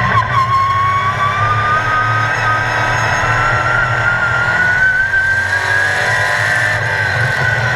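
Sportsman race car engine heard from inside the cockpit, pitch climbing steadily as the car accelerates out of a corner, then levelling off and easing slightly near the end as the driver lifts for the next turn.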